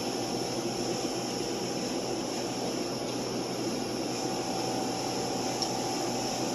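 Steady background hiss and hum in the room, with a faint tick a little before the end.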